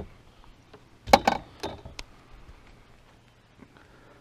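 A quick cluster of sharp knocks and clinks about a second in, then a few lighter clicks: fishing gear being handled and knocking against a bass boat's deck.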